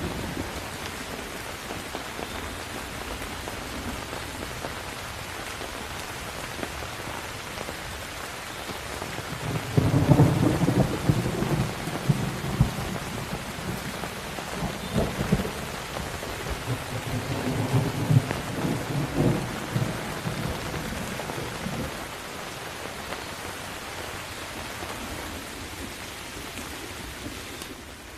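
Steady rain with thunder. A long roll of thunder starts about a third of the way in, is loudest at first, then keeps rumbling in several swells for about twelve seconds before dying away, leaving the rain alone.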